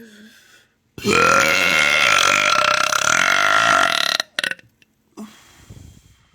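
One long, loud human burp, starting about a second in and held for about three seconds before breaking off with a short tail.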